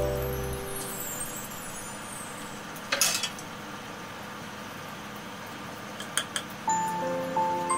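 Metal spoon clinking against a saucepan of thick pumpkin soup: a short cluster of clinks about three seconds in and two light clicks about six seconds in. Background music fades out at the start and comes back near the end.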